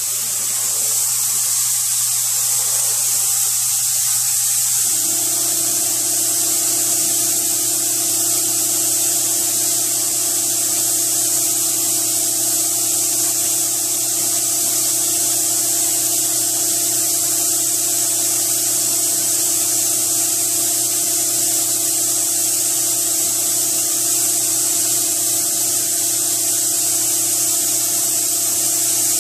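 Steady hiss of compressed air through an automotive paint spray gun, over a low steady hum.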